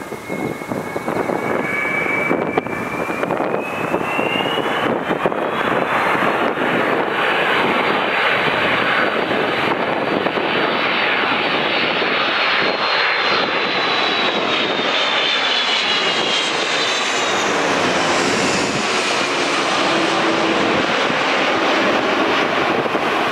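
Airbus A330-300 jet airliner on final approach passing low overhead: its engines' roar builds to a loud, steady rush. A high whine over the roar climbs in pitch over the first several seconds, then drops in pitch as the plane passes overhead.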